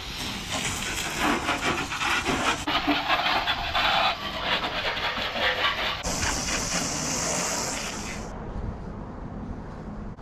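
Loud hissing with a crackling, spraying texture. About six seconds in it narrows to a higher, thinner hiss, which fades out a couple of seconds later.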